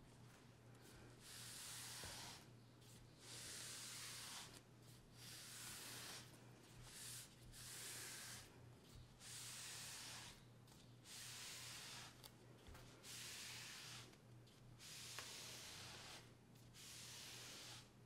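A hand wiping oil into a wooden cutting board: a steady series of soft swishing strokes, about one a second.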